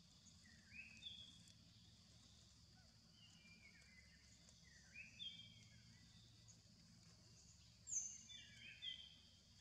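Faint outdoor ambience: a steady high insect hiss with short chirping bird calls scattered through it, a few louder chirps near the end.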